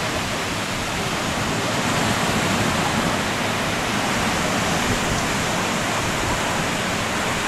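Steady rush of surf breaking on a sandy beach, an even hiss that swells slightly about two seconds in.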